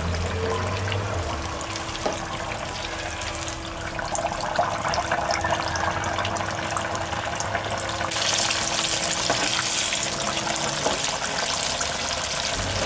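Breadcrumbed mozzarella sandwich deep-frying in the basket of an electric deep fryer: hot oil bubbling and crackling steadily, the hiss growing brighter about eight seconds in.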